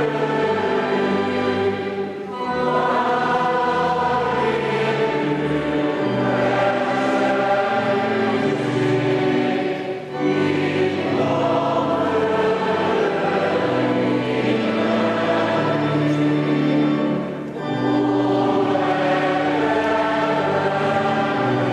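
Many voices singing a hymn together in long, held phrases, with short breaks for breath about two, ten and seventeen seconds in.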